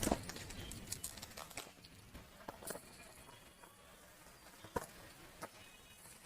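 Soft, scattered clicks and taps of a cube's box and packaging being handled and opened, with one sharper tap about five seconds in.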